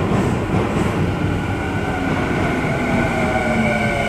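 Tokyu 5000 series train's Hitachi IGBT-VVVF inverter and traction motors whining as it brakes into the platform, over wheel and rail rumble. The whine sets in about a second in, with its lower tones falling slowly in pitch as the train slows.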